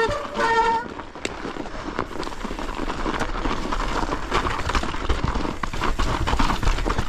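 Mountain bike being ridden down a snowy trail, with crunching and crackling from the tyres in snow and many small rattles and knocks. Low wind rumble on the microphone builds after about three seconds. A short, steady pitched tone sounds in the first second.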